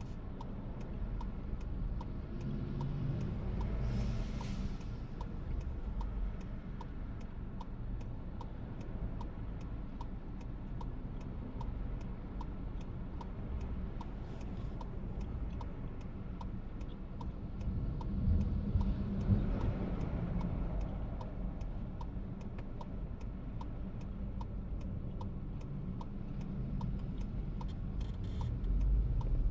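Turn-signal indicator ticking steadily inside a VW T-Roc's cabin, about one and a half ticks a second, over low engine and road rumble. The rumble swells twice, about four seconds in and again around nineteen seconds in.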